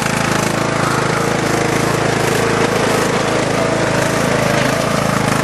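Lawnmower's small petrol engine running steadily with a fast, rattling pulse.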